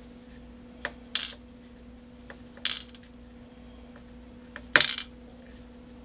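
Small lock pins from a five-pin cylinder being set one at a time into a plastic pinning tray: short metallic clinks about every one and a half to two seconds, three clear ones with a couple of fainter ticks between, the last clink the loudest. A faint steady hum runs underneath.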